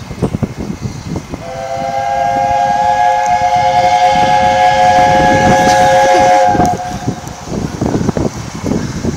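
Steam locomotive's three-note chime whistle, the LNER A4 type, sounded once for about five seconds, starting about a second and a half in and cut off sharply. Gusty wind buffets the microphone throughout.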